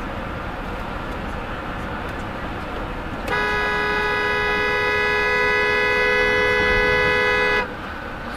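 A car horn sounds one long, steady two-tone blast of about four seconds, starting about three seconds in and cutting off sharply, over steady road noise from a moving car.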